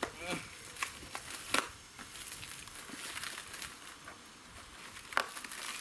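Plastic wrapping crinkling and tearing as it is pulled off a new air filter, with a few sharp crackles near the start and again near the end.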